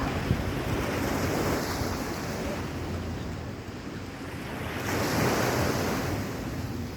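Sea waves washing onto the beach, swelling twice, with wind buffeting the microphone.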